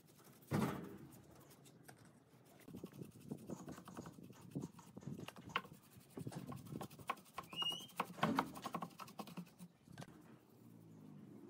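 Paintbrush bristles dabbing and scrubbing wood finish into rough end-grain blocks: faint, irregular scratching and light tapping, with one louder scrape just after the start.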